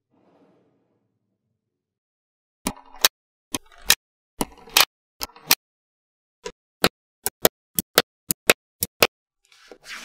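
Small magnetic balls snapping together with sharp clicks. First a few short clusters of clicks and rattles, then a run of single clicks about three a second, with a soft scrape near the end.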